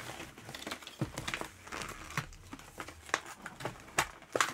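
Plastic and cardboard doll packaging crinkling and crackling as it is handled, with irregular small clicks and taps. A couple of sharper clicks come near the end.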